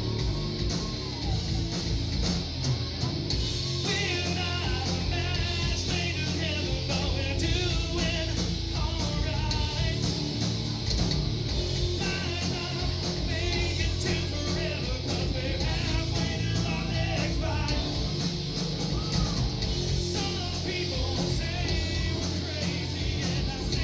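Rock band playing live, with electric guitar and drums. A man starts singing into the microphone about four seconds in.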